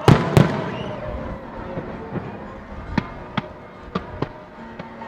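Aerial fireworks bursting: two loud bangs right at the start, then a string of lighter, sharper cracks every half-second or so.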